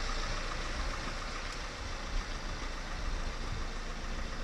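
Steady low mechanical rumble of a running motor, with one soft knock about two seconds in.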